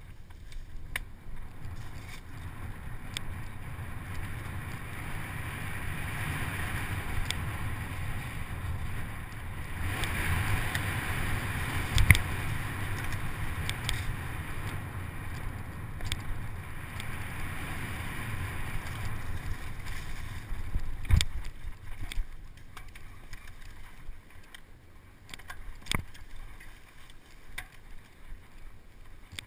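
Electric mountain bike riding down an overgrown singletrack: tyres rolling and bike rattling over rough ground, grass and brush swishing against the bike, and wind on the microphone. Sharp knocks from bumps break through, the loudest about halfway through and a few more later, and the riding noise eases off in the last third.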